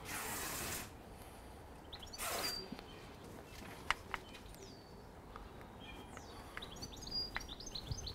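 Hands screwing together the plastic connectors of an LED light-strip cable and handling the cable: two brief rustles and a few small clicks. Small birds chirp faintly in the background.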